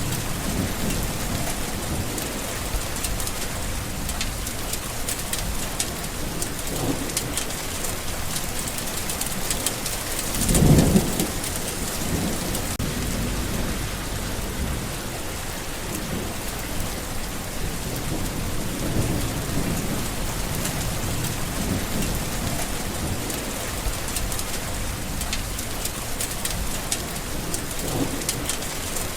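Steady rain falling, with low rolls of thunder underneath and one louder thunder rumble about a third of the way through.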